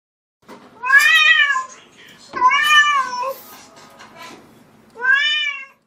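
A cat meowing three times: about a second in, again around two and a half seconds, and near the end. Each call rises and then falls in pitch.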